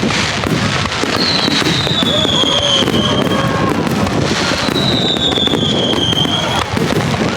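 Fireworks bursting close overhead: a dense, continuous crackle. Two long whistles slowly fall in pitch, one starting about a second in and another about four seconds in.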